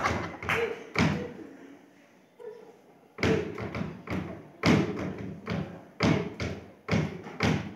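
Dress shoes stamping in rhythm on a hollow wooden platform, thudding about twice a second, after a pause of about two seconds near the start.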